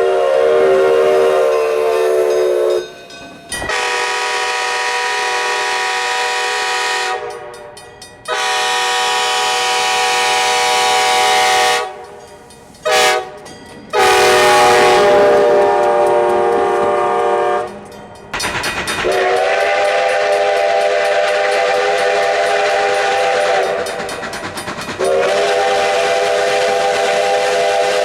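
Locomotive chime whistle sounding the grade-crossing signal, long, long, short, long, each blast a steady chord of several notes with a hiss over it. Other long chime blasts come before it and two more follow on a cleaner, lower chord.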